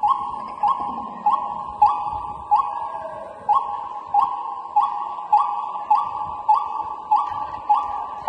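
Dance accompaniment: a ringing metallic percussion beat, about one and a half strokes a second, each ring fading before the next stroke.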